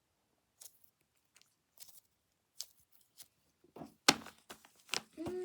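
Scattered light clicks and rustles of small toys and packaging being handled, with a sharper knock about four seconds in. A person starts humming one steady note just before the end.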